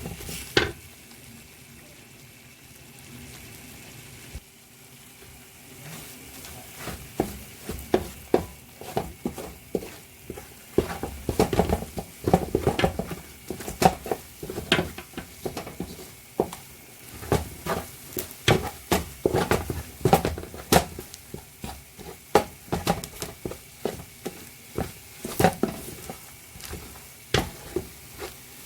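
A spoon stirring ground egusi frying in palm oil in a pot, knocking and scraping against the pot many times over a low sizzle. The knocks are sparse at first and come thick and fast from about six seconds in.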